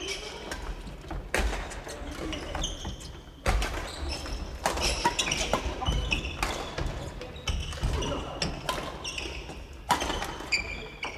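Badminton play on a wooden gym floor: rackets smacking shuttlecocks, sneakers squeaking and feet thudding as players move and lunge, echoing through a large hall.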